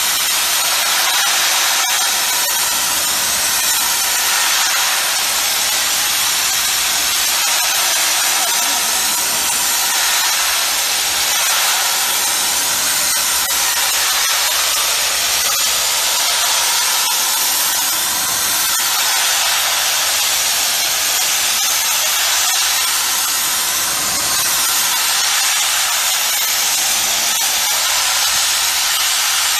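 High-pressure water jet from a hand-held washer lance blasting paint off a steel pipe, a steady, loud hiss.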